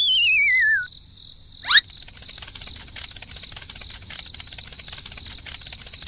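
Cartoon sound effects: a descending, wavering whistle for a dazed character, then a quick rising zip, the loudest moment, followed by steady cricket chirping.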